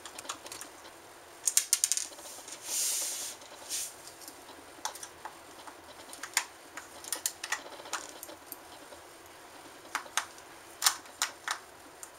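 Small screwdriver working at the screws of a plastic Xbox 360 wireless controller case: irregular sharp clicks and taps of the tip and plastic, with a brief scraping hiss about three seconds in.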